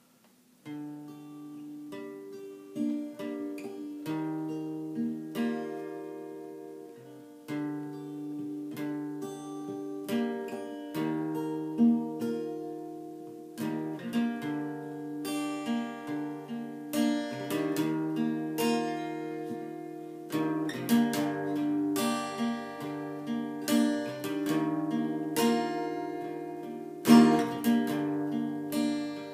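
Acoustic guitar strumming and picking a song's instrumental introduction, with chords changing every second or two.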